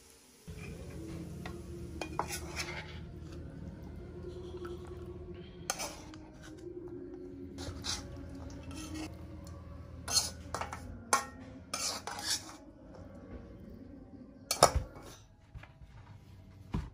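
Spatula clinking and scraping against a metal wok as the fried tempe is stirred and served out, a dozen or so sharp knocks at uneven intervals, the loudest near the end, over a steady low hum.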